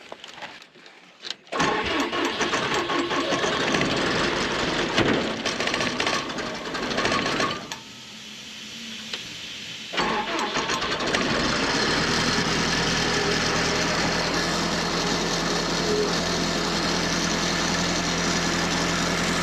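John Deere diesel engine of an Ingersoll Rand portable air compressor, cold-started on a shot of ether with a new gear reduction starter, catching about a second and a half in and running unevenly. It quietens for a couple of seconds, then from about ten seconds in runs steadily at an even pitch.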